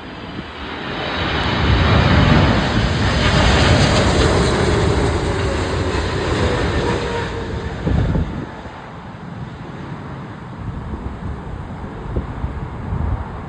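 Jet airliner passing close overhead on its landing approach: a broad engine rumble that swells, peaks with a faint falling whine, then fades away. Wind buffets the microphone about eight seconds in.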